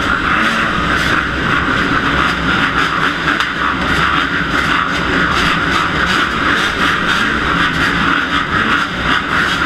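Several dirt bike engines running steadily on the motocross starting line, including the rider's own Kawasaki KX250F 250 cc four-stroke single, heard from a helmet-mounted camera.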